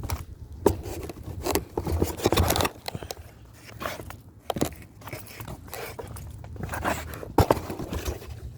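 Irregular scrapes, clicks and knocks, as of things being handled or moved, over a low rumble.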